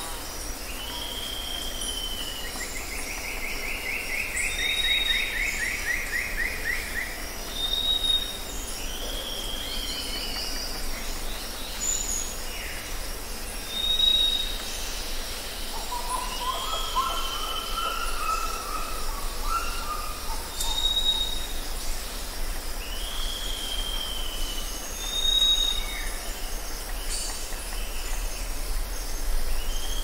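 Birds calling: short high whistled notes repeated every few seconds, down-slurred whistles, a fast trill a few seconds in and a lower warbling phrase near the middle, over a steady low hum.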